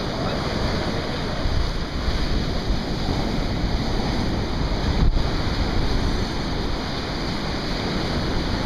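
Surf breaking and washing up a sandy beach, with wind buffeting the microphone in a steady low rumble.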